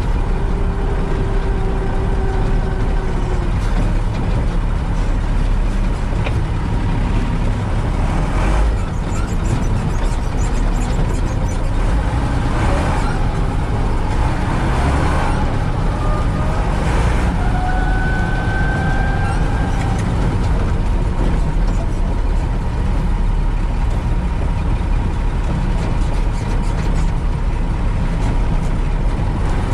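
Unimog U 406 diesel engine running steadily under load as the truck drives along a gravel track, with a few short jolts or rattles.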